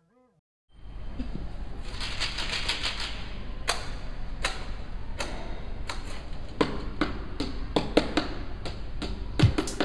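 Tin cans and a plastic bottle tapped and knocked as improvised percussion: sparse sharp taps at first, coming faster, with deeper thumps joining near the end.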